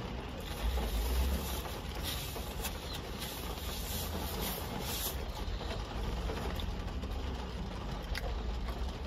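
Steady low rumble and hiss inside a car, with a few faint ticks.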